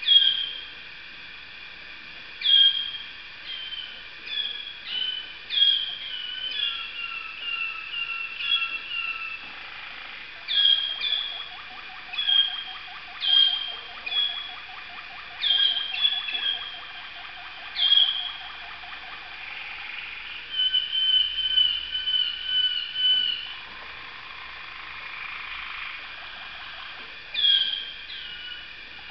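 Waterslager canaries singing: short high whistled notes that drop in pitch, repeated every second or two, mixed with quick trilled runs. A long low rolling run sounds beneath them for about ten seconds from roughly a third of the way in, and a fast bright trill follows shortly after.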